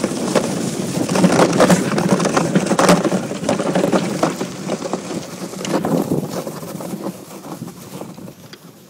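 DN iceboat's steel runners scraping and chattering over snow-covered lake ice, with many sharp knocks and wind buffeting the microphone. The sound fades steadily over the last few seconds as the boat slows.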